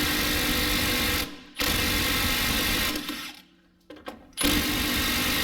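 Cordless 3/8-inch stubby impact wrench hammering in three bursts of a second or more each, trying to undo a 15 mm stabilizer-link bolt that is rusted in place and won't come off.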